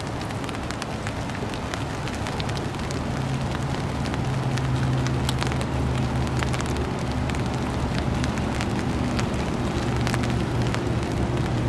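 Light rain pattering on the water and the kayak: scattered sharp drop ticks over a steady hiss. A low steady hum underneath comes up after about two seconds.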